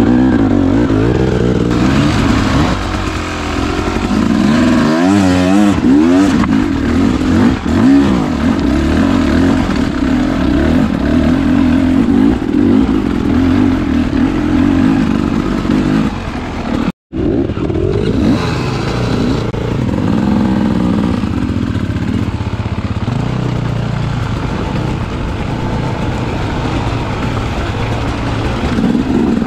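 Enduro dirt bike engine running and revving on the trail, its pitch rising and falling as the throttle is worked. The sound cuts out completely for a moment about seventeen seconds in.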